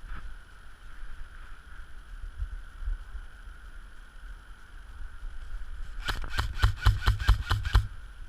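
An airsoft gun firing a rapid burst of about ten shots, roughly six a second, starting about six seconds in. Low wind rumble on the microphone runs underneath.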